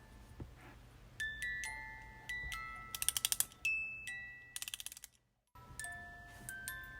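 Music box playing a slow melody of single plucked, ringing notes, with two short runs of quick mechanical clicking from its mechanism. The sound breaks off for a moment about five seconds in, then the notes resume.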